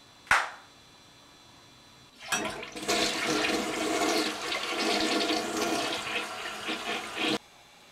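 A toilet flushing: water rushing and swirling down the bowl for about five seconds, cut off abruptly. A brief sharp sound, the loudest moment, comes just before, about a third of a second in.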